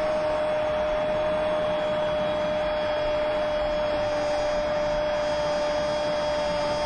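A Spanish-language football commentator's long, drawn-out goal cry, held on one steady pitch for the whole stretch over stadium crowd noise.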